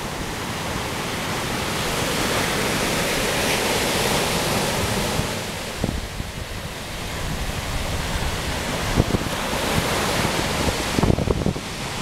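Ocean surf breaking on a sandy beach: a steady wash of foaming water that swells, eases off about halfway through, then builds again. Wind rumbles on the microphone, most near the end.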